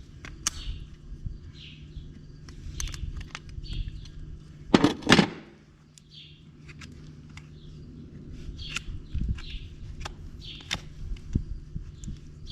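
Small birds chirping in short, repeated calls, with scattered light clicks and two loud knocks close together about five seconds in.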